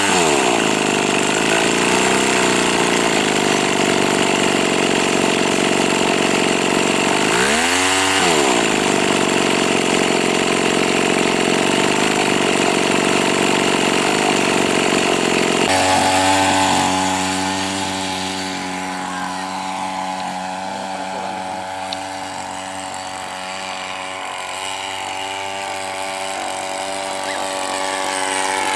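Small two-stroke petrol brush-cutter engine driving a model plane's propeller at high revs, its pitch dipping sharply and climbing back about eight seconds in. From about sixteen seconds the note turns quieter and more distant as the plane flies, with a falling pitch near the end as it passes.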